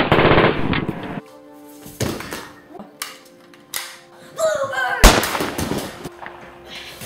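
A rapid burst of machine-gun fire lasting about a second, followed by a few separate sharp shots, the loudest about five seconds in. Gunshot sound effects over faint background music.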